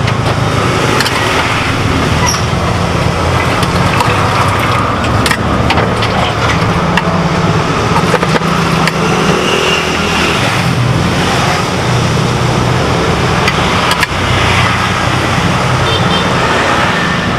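Steady road traffic running close by, a continuous rumble that swells and fades as vehicles pass. Now and then a short metallic clink from a ladle and bowls at a street-food cart.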